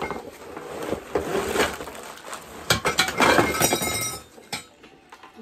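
Metal tubes of a flat-packed rolling clothes rack clinking and clattering against each other as the parts are handled, with the busiest clatter and a brief metallic ring about three seconds in.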